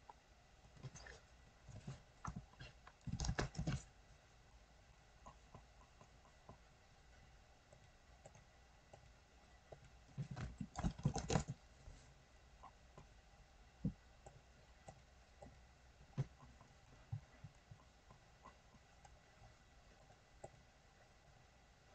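Faint computer mouse clicks and keyboard typing: scattered single clicks, with short runs of quick keystrokes about three seconds in and again around ten seconds in.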